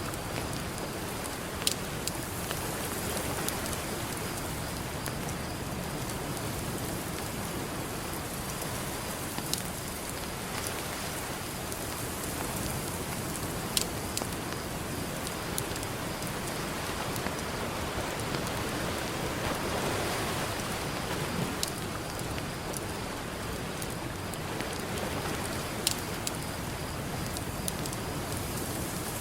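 Campfire crackling with a few sharp pops every several seconds, over a steady wash of ocean surf that swells slightly about two-thirds of the way through.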